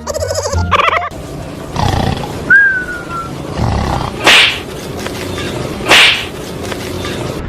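A dog barks twice, loud and harsh, a second and a half apart, after a short high whine, reacting to a stuffed tiger.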